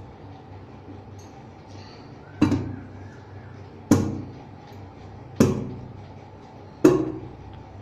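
Upturned stainless steel plate struck with a small child's hands: four ringing metallic bangs about one and a half seconds apart, each dying away.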